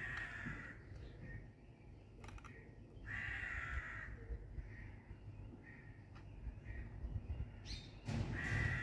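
A crow cawing repeatedly, with the loudest calls at the start, about three seconds in and near the end, and fainter caws between.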